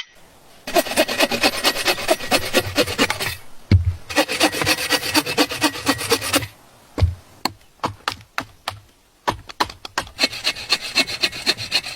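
Hand saw cutting through wood in two bouts of quick rasping strokes, then several separate knocks, then a shorter bout of sawing near the end.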